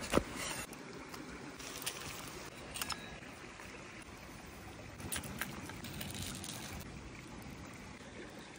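A creek running steadily, with a single sharp chop of a cleaver through roasted meat onto a wooden board just after the start, and a few small clicks and knocks later on.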